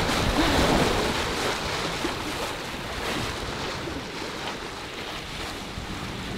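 Wind and water rushing around a sailboat under sail, an even noise that slowly grows quieter over the first few seconds.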